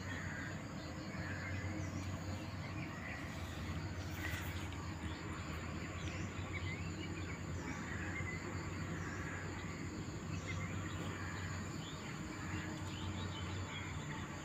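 Outdoor ambience of insects trilling steadily at a high pitch, with soft calls repeating about once a second, over a low steady hum.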